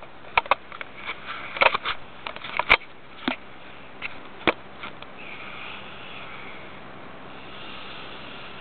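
A teenage boy snoring in his sleep: a drawn-out breathy snore of about three seconds in the second half, preceded by a scatter of short sharp clicks.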